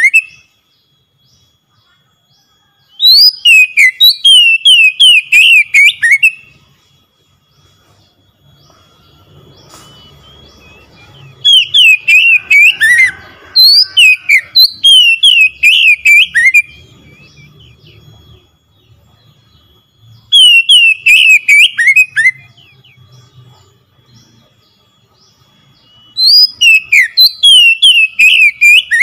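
Oriental magpie-robin (kacer) singing in loud bursts of rapid, repeated falling whistled notes. There are five phrases, each two to three seconds long, with short pauses between them.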